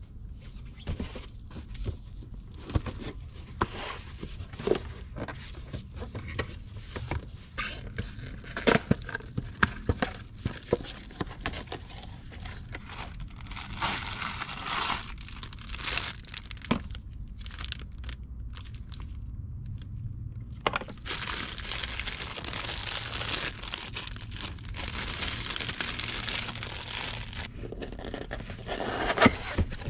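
Cardboard parts boxes being handled and opened by hand. Sharp knocks and taps come as boxes are set down and turned over on a cardboard-covered bench, with stretches of crinkling and tearing packaging midway and again in the second half.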